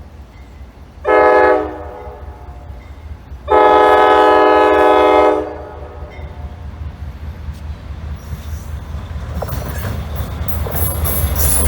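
Diesel locomotive air horn sounding a short blast and then a long one, the closing notes of a grade-crossing signal, each a loud chord of several notes. Under it the train's low rumble runs steadily, and from about two-thirds of the way in the rail and wheel noise grows louder as the train draws near.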